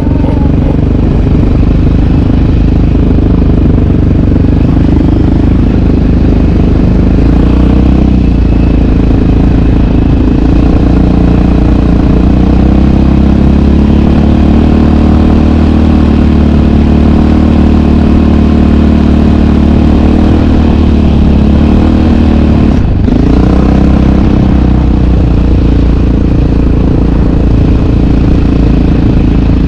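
Yamaha sport ATV's single-cylinder four-stroke engine running under way, its pitch rising and falling as the throttle is worked. About three-quarters of the way through the throttle is cut briefly, then the engine picks up again.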